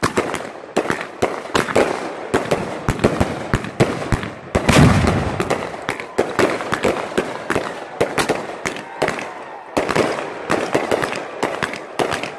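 Ground-launched fireworks going off in a rapid, continuous run of sharp pops and bangs with crackle between them, loudest about five seconds in.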